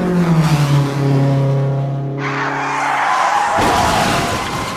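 A car sound effect: an engine note drops in pitch, then tyres skid from about two seconds in, with a heavy hit partway through the skid.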